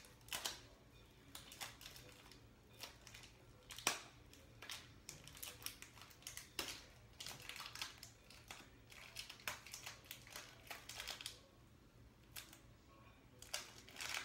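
Small plastic Shopkins packet crinkling and crackling faintly as fingers pick and pull at it, in short irregular bursts, with one sharper snap about four seconds in.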